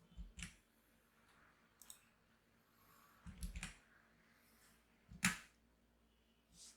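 A few scattered clicks from operating a computer, the loudest about five seconds in.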